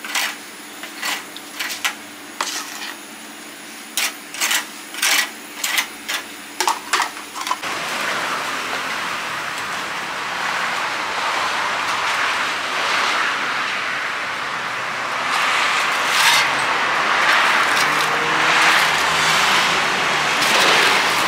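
A metal spoon clicking sharply and irregularly, about twice a second, as salt is spooned over a fish in a wire grill basket on a metal tray. After that comes steady outdoor street noise with traffic, which grows louder over the last several seconds.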